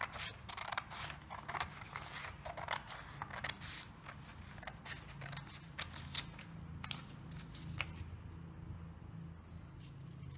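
Hand scissors snipping through a paper template, many quick cuts that come thick in the first half and thin out later. A low steady hum runs underneath.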